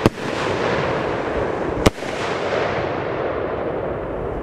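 Shotgun Fireworks Pig Lit stick rockets bursting overhead: two sharp bangs about two seconds apart, with a crackling hiss between them that slowly fades away.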